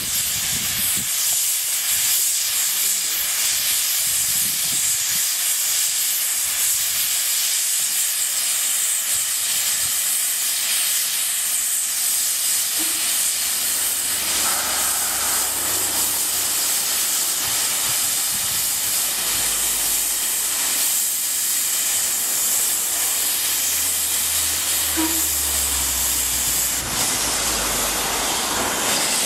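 Double Fairlie steam locomotive Merddin Emrys standing in steam with a loud, steady hiss of escaping steam. A low rumble joins in about halfway through.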